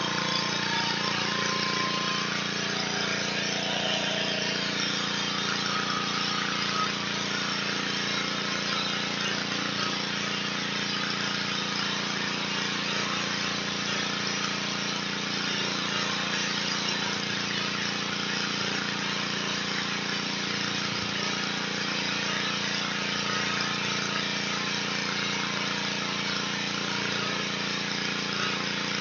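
Pressure washer running steadily: an even small-engine drone under the hiss of the high-pressure water spray.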